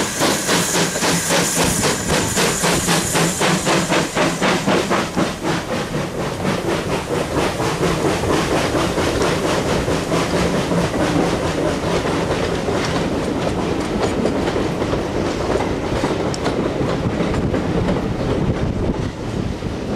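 Steam tank locomotive passing close while working, its exhaust a fast, even beat of chuffs for the first few seconds. Then its coaches roll by with a steady rumble and clatter of wheels on the rails.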